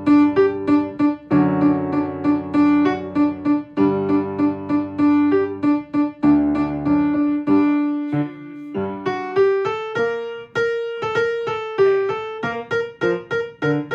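Piano playing a choral alto part slowly, as a part-learning track. First a repeated note is struck over sustained chords. From about nine seconds in, it plays short, detached single notes a little higher.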